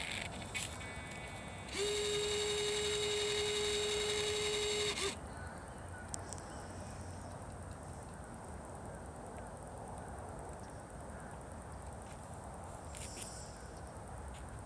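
A small electric motor buzzing at one steady pitch for about three seconds, then stopping abruptly.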